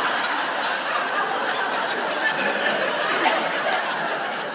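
A large live audience laughing together at a punchline, the laughter starting to die down near the end.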